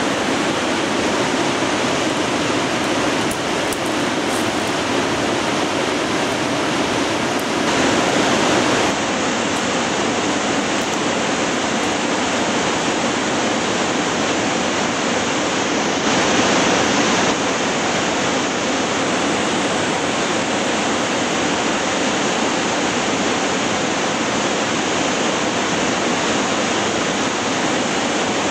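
Steady rush of a fast mountain river, swelling briefly louder twice, about eight and sixteen seconds in.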